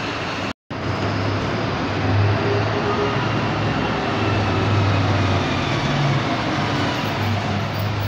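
Diesel city bus engines running as buses pull away close by, a steady low engine drone with the noise of the moving bus. The sound cuts out completely for an instant about half a second in.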